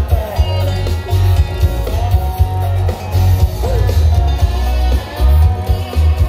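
Loud country-style dance music: a singing voice and guitar over a strong, pulsing bass beat.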